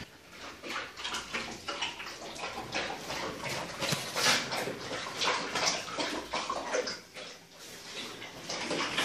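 German Shepherd and puppies drinking from a plastic bucket: an irregular run of wet lapping and splashing.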